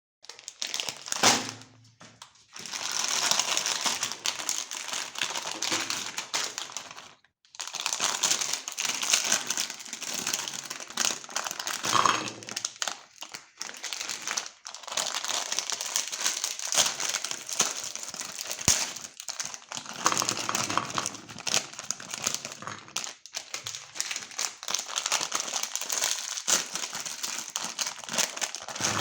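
Plastic candy wrapping crinkling and rustling continuously as it is handled, with a few short pauses.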